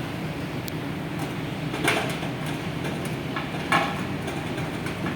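Heavy diesel machinery running steadily, with two sharp metallic clanks about two seconds and nearly four seconds in, and a few fainter ticks.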